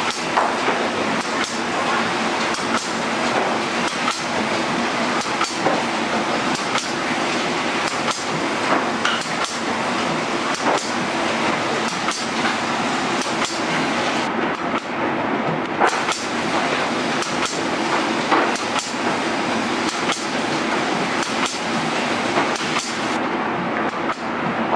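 Automatic shrink-film cut-and-seal packaging machine running: a steady mechanical clatter with frequent, irregular clacks and knocks from its moving parts.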